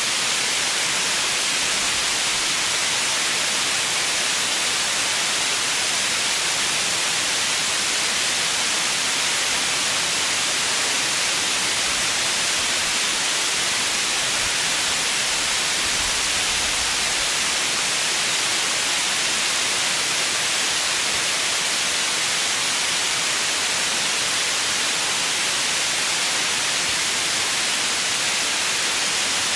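Steady white noise: an even, unchanging hiss, brightest in the high pitches.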